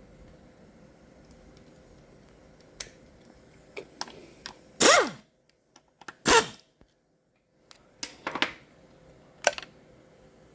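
Small clicks and knocks of hand tools and metal parts on a transmission being taken apart. About five and six seconds in come two loud, short bursts, each with a quickly falling pitch.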